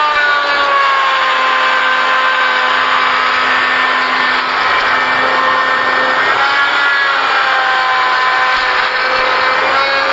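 Electric power tool running continuously on wood, its whine drifting slowly down and back up in pitch.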